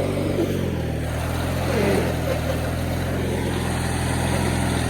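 1997 MTD Yard Machines riding mower's engine running steadily.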